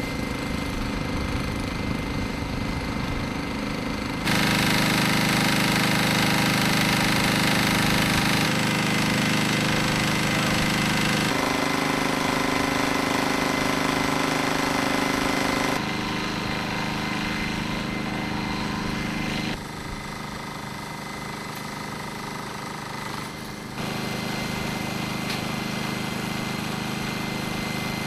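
Pressure washer units running steadily, with the high-pressure spray hissing against a helicopter's fuselage. The engine note and loudness jump abruptly about every four seconds.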